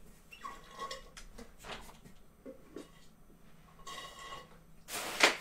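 Scattered faint clinks and knocks of objects being handled in a small room. Near the end comes a brief, loud rustling burst.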